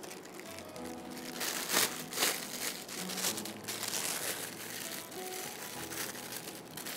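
Disposable plastic piping bag crinkling as it is twisted and squeezed in the hands, loudest about two seconds in, over soft background music.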